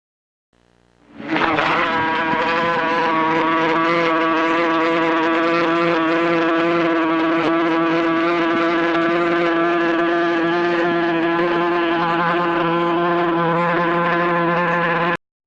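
Bees buzzing in a steady, pitched drone that swells in about a second in, holds level and cuts off abruptly near the end.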